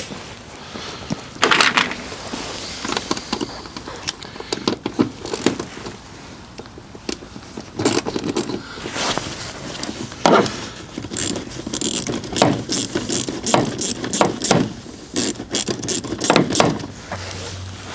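Hand tools on metal under a truck's hood: irregular clinks and clicks, with runs of quick ratchet clicking in the second half, as an 8 mm socket works the cooling-system hose clamps loose.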